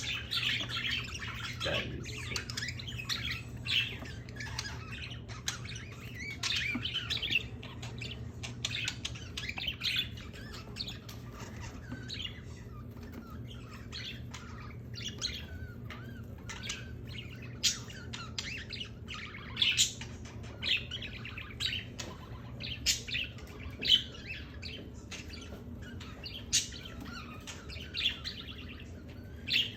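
Pet birds chirping and squawking almost without pause, with many short calls and a few louder, sharper squawks in the second half. A steady low hum runs underneath.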